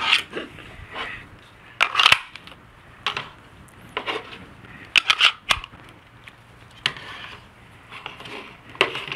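Compact pistols being pushed into stiff Kydex holsters and the holstered guns set down and shifted on a wooden tabletop: an irregular string of sharp plastic-and-metal clicks, clacks and short scrapes.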